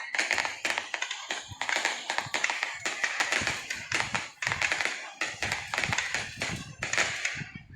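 Aerial fireworks crackling: dense, rapid pops in several bursts with short breaks between.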